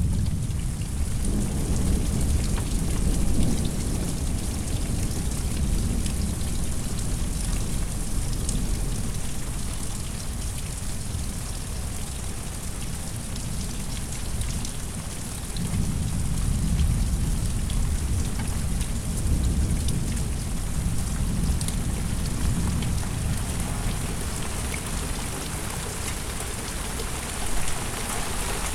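Thunderstorm: steady rain falling, with low rumbles of thunder that rise and fade, first a couple of seconds in and again for several seconds around the middle.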